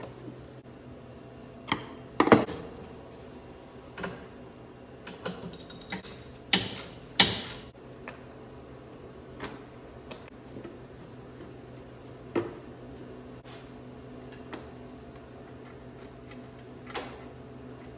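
Scattered metallic clicks and clanks of hand tools and metal parts being handled while the forward and reverse pedals of a compact tractor are refitted, with a quick run of ticks a few seconds in, over a steady low hum.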